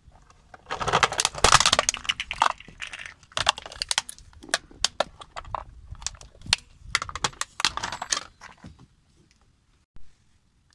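Hard plastic toy truck cracking and snapping as a car tyre rolls over it and crushes it. A dense run of sharp cracks and pops comes first and is loudest; scattered snaps follow and die away near the end.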